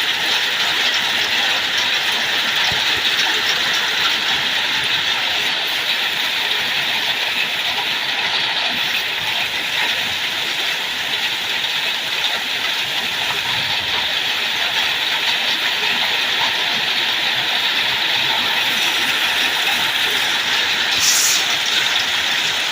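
Heavy hail coming down hard: a steady, dense rush of small hailstones striking.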